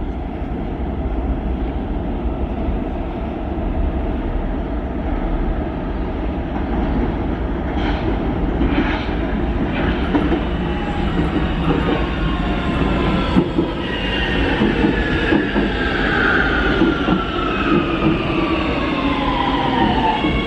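Warsaw Metro train arriving at an underground station: a steady rumble builds as it comes through the tunnel, and over the last several seconds a whine falls in pitch as the train slows along the platform.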